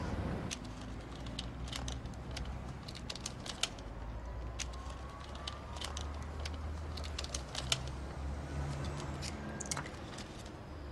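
Wrapping paper being folded and creased by hand around gift boxes: many light, crisp, irregular clicks and rustles over a low hum.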